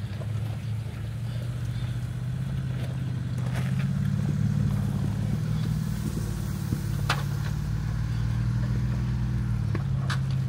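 Jeep engine running low and steady as the vehicle crawls slowly over a rocky washout, swelling a little about four seconds in. There are a few sharp clicks of rock under the tyres, the clearest about seven seconds in.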